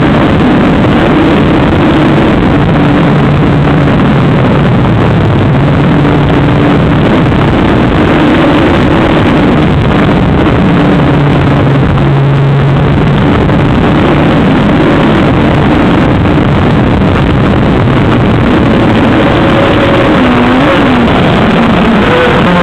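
Model aircraft's engine heard through its onboard camera's microphone: a loud, steady droning buzz mixed with wind rush, its pitch shifting up and down through the flight.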